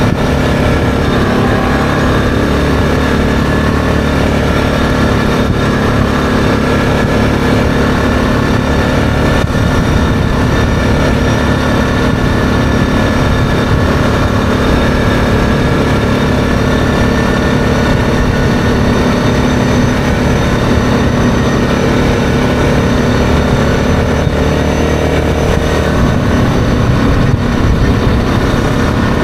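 ATV engine running steadily at cruising speed, heard from the rider's seat, with low rumble from the ride.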